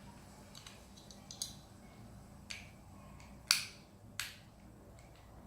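Sharp plastic clicks and snaps from toy construction-kit parts being handled and pressed out. There are about four distinct snaps, the loudest a little past halfway, with fainter ticks between them.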